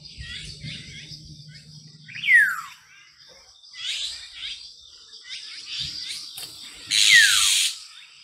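Outdoor birdsong: small birds chirping in quick falling notes over a steady high insect drone. A louder bird gives a falling call about two seconds in, and again near the end, where it comes with a harsh screech.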